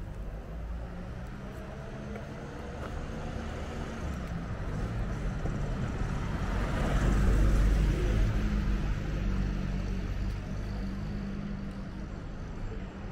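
A car driving past, growing louder to a peak about seven seconds in, then fading away, over a steady low engine hum.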